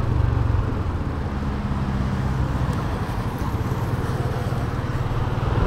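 Small Yamaha motorcycle engine running at low speed with road and wind noise as the bike rolls slowly over rough ground. The engine note eases off about halfway through as the bike slows.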